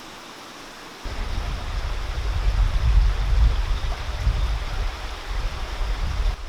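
Mountain stream flowing steadily, with a loud, unsteady low rumble coming in about a second in.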